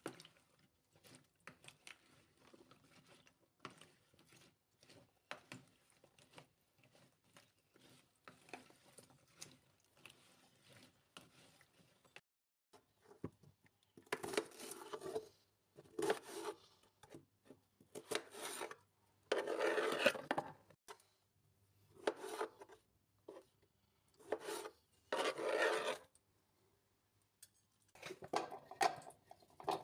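Kitchen food preparation: after faint handling clicks, a run of rough rubbing and scraping strokes, each lasting about a second, starts about halfway through.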